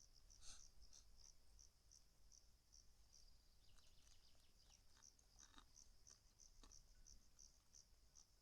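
Crickets chirping in an even rhythm of about three high chirps a second, faint, with a few soft clicks scattered among them.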